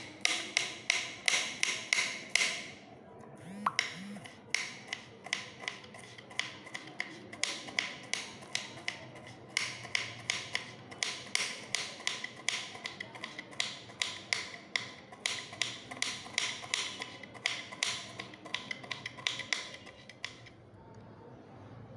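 Kitchen knife chopping bitter gourd on a wooden cutting board: quick, even strokes, about five a second, in runs with short pauses, stopping shortly before the end.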